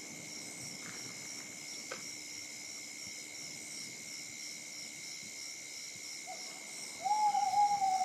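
Night insect chorus: a steady high shrill with a rhythmic pulsing chirp several times a second. Near the end, a single loud hooting note rises slightly and holds for about a second.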